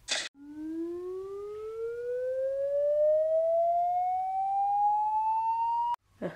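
Animation sound effect: a short burst of noise, then a single tone that slides slowly and steadily upward in pitch for about six seconds and cuts off suddenly with a click.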